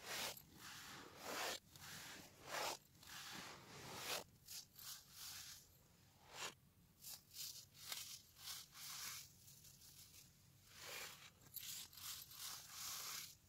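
Hands crushing and scraping dry baking soda powder: a string of irregular soft crunches and scrapes, closely spaced at first, sparser in the middle, bunching again near the end.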